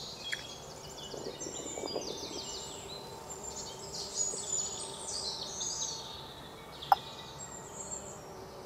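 Several birds chirping and trilling in quick repeated notes over steady outdoor background noise, with a single sharp click about seven seconds in.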